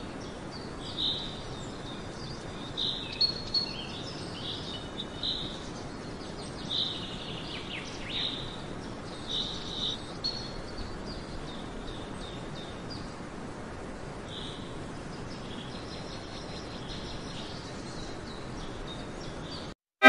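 Birds chirping in short, scattered calls over a steady background hiss of outdoor ambience; the calls come most often in the first half.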